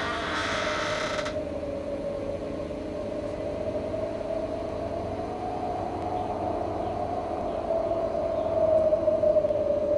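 A sustained, eerie droning tone from a horror soundtrack, slowly wavering in pitch over a low rumble and swelling louder near the end. A higher, wailing sound cuts off about a second in.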